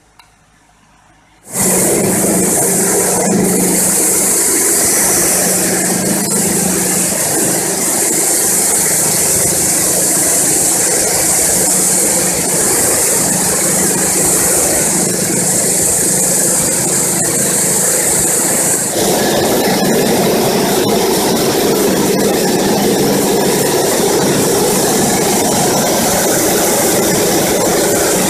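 Coffee-bean sieving machine switched on with a click of its push-button switch. About a second and a half in, loud, steady mechanical running noise with a strong hiss starts abruptly. About two-thirds of the way through, the sound shifts to less hiss and more mid-range rattle.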